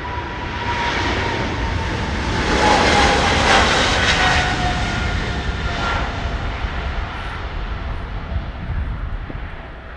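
KLM Boeing 777-300ER's twin GE90 turbofans at takeoff power, passing by. A loud jet rush swells to its peak about three to four seconds in and then fades, and a fan whine drops in pitch as the aircraft goes past.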